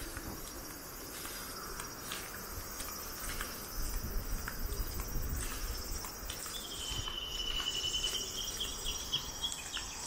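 Insects shrilling steadily in summer forest, with a thin, steady high note joining about seven seconds in and breaking up near the end.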